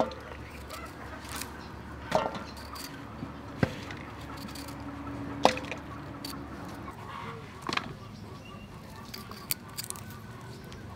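Small knife cutting florets off a cauliflower head held in the hand: a handful of sharp, crisp snaps a second or two apart over a steady low background.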